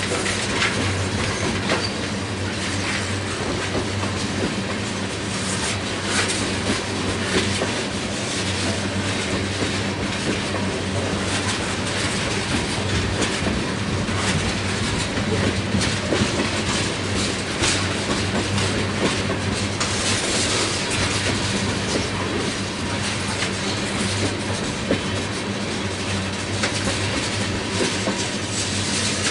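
Railroad oil tank cars rolling past in a long steady procession, their steel wheels clicking over rail joints over a continuous low rumble.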